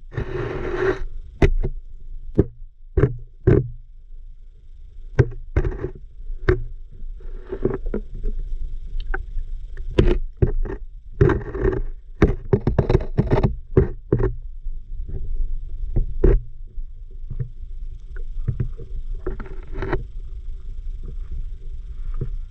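Underwater sound heard through a submerged camera's housing: a steady low rumble of moving water with many irregular sharp clicks and knocks, several coming in quick clusters about halfway through.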